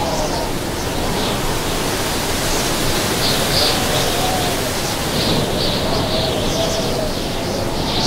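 Strong desert wind blowing steadily, with a faint howling tone that rises and falls and a hiss of blowing sand.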